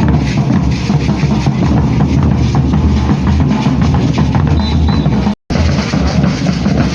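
Maracatu de baque virado drum ensemble playing: deep alfaia bass drums with snare drums in a dense, driving rhythm. The sound cuts out for a split second about five and a half seconds in.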